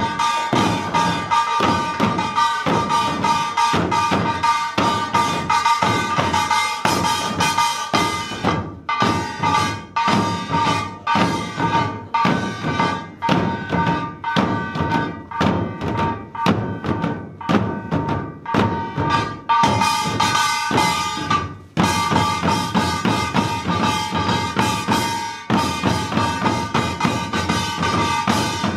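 Korean buk barrel drums beaten by a drum-dance troupe in a fast, dense rhythm, with a steady ringing tone held above the beats. The drumming breaks off briefly twice, about a third and about three quarters of the way through.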